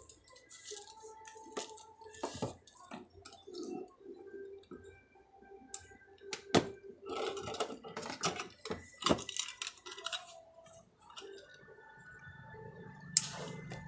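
Scattered light clicks, knocks and clinks of hard objects being handled, irregular, with a few sharper knocks about six and a half, nine and thirteen seconds in.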